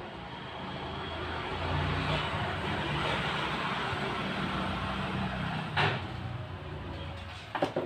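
A motor vehicle passing by: its low engine hum and road noise swell over a second or two, hold, then fade. A few sharp clicks come near the end.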